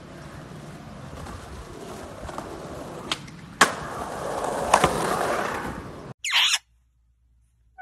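Skateboard wheels rolling on concrete pavement, with sharp clacks of the board a little after three seconds in, the loudest as it comes down off the steps and rolls on louder and closer. The sound cuts off suddenly a little after six seconds.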